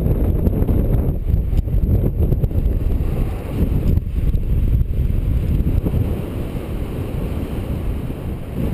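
Strong wind buffeting the microphone: a loud, rumbling rush of noise that eases slightly about halfway through.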